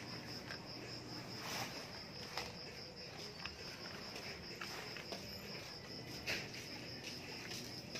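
Crickets chirping steadily in a high, evenly pulsing trill, with a few faint clicks and knocks of handling, the sharpest about six seconds in.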